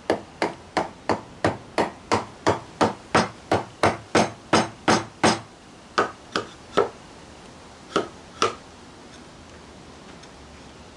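Rubber mallet tapping a wooden dovetail joint together, a quick run of about three sharp knocks a second for roughly five seconds, then a few slower single taps. The joint's tails and pins are being driven home to seat it.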